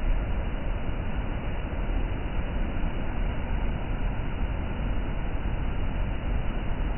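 Waterfall: a steady rush of falling water, strongest in the low rumble.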